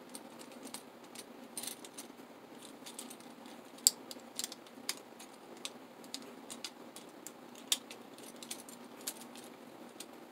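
Faint, irregular light clicks and rattles of a small plastic Transformers action figure, a Titans Return Bumblebee, being handled and its parts clicked into place. The sharpest click comes about four seconds in, with another near eight seconds.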